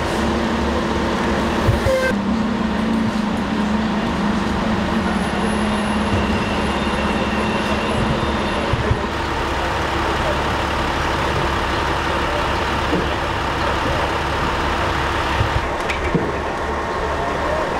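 Steady city street noise with engines idling and a constant low hum. It changes abruptly at about two, nine and sixteen seconds in.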